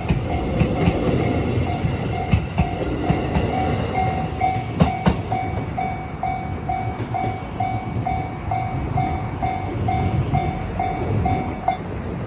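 JR West 207 series electric train passing, a low rumble with its wheels clicking over rail joints. A level-crossing alarm rings steadily about twice a second over it and stops shortly before the end.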